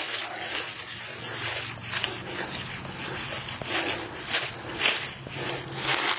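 Rubbing and scraping moss and dirt off the face of an old gravestone by hand, in quick repeated strokes about two a second.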